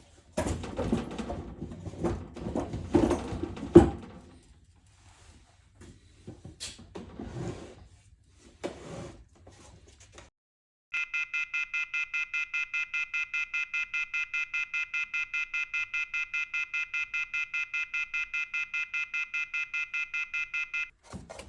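Wooden drawers and loose metal tools clattering and knocking as a drawer of a machinist's toolbox is put away and the next one handled. After that comes about ten seconds of rapid electronic beeping, roughly four to five even pulses a second, which stops suddenly near the end.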